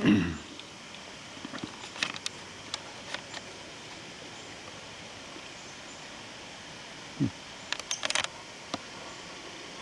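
Woodpecker tapping and chipping at a tree trunk while excavating a nest hole: scattered taps about two to three seconds in and a quick run of taps around eight seconds, over steady wind noise. A short low thump at the start and another about seven seconds in.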